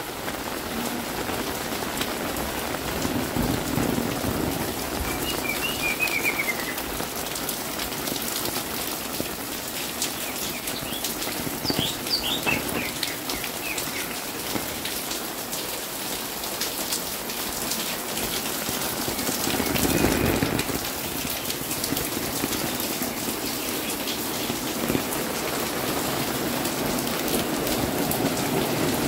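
Steady rain falling on a narrow paved alley and its roofs, with a few short bird chirps about six and twelve seconds in and a brief louder swell of rain noise about two-thirds of the way through.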